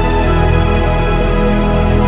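Background music: sustained, steady chords over a continuous bass line.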